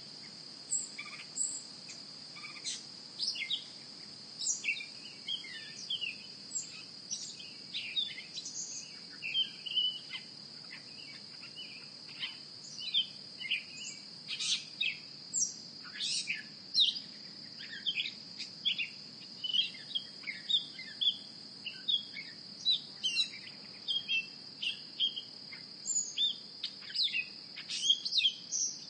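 Outdoor nature ambience: a steady, high-pitched insect trill with many short bird chirps over it, about one or two a second.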